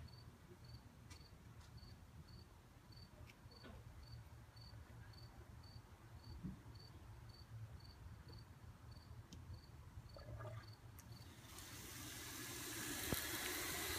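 A cricket chirps steadily, about two chirps a second, over quiet. About eleven seconds in, a steady hiss of water spray rises and holds as the Pure Rain oxygen-infusing lawn sprinkler starts throwing a fine mist.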